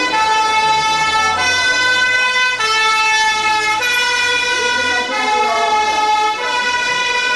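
French two-tone emergency siren on a sapeurs-pompiers (fire brigade) van, alternating between a high and a low note about every second and a quarter as the van passes close.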